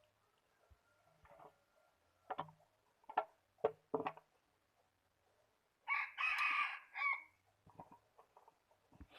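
A rooster crowing once, about 1.3 seconds long, after a few short sharp sounds.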